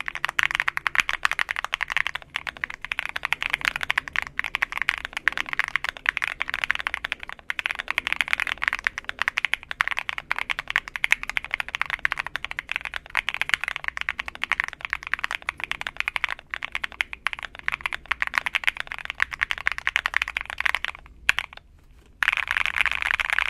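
Typing on an Akko ACR Alice Pro mechanical keyboard with Akko Crystal Silver switches: a fast, continuous clatter of keystrokes. The typing pauses briefly twice near the end.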